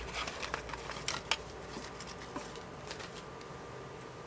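Hands sweeping cut paper scraps across a cutting mat: soft, scattered rustling with a few light taps, slightly louder about a second in.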